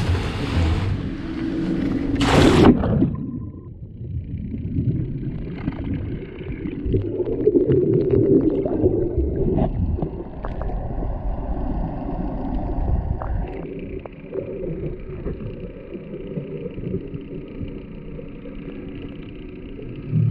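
Splashes of swimmers jumping into the sea, the loudest about two seconds in. Then, from about three and a half seconds in, muffled sound recorded underwater through the camera's waterproof housing: bubbling and a low rumble with scattered clicks, and a faint steady hum from about thirteen seconds in.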